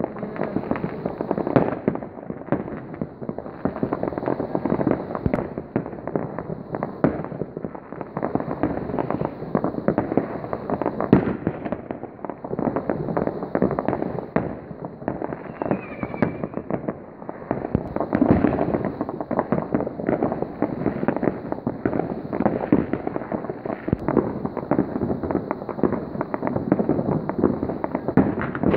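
Many fireworks and firecrackers going off at once: a dense, unbroken run of overlapping bangs, pops and crackles, with a few louder single bangs standing out.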